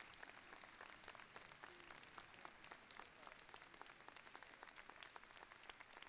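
Audience and choir applauding: many hands clapping densely and unevenly, without a break.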